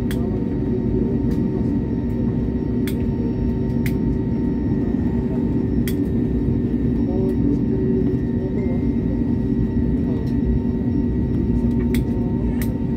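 Cabin noise of an Airbus A321neo taxiing, heard from a window seat beside its Pratt & Whitney PW1100G geared turbofan at idle: a steady low rumble with a few steady tones over it, and a few light clicks.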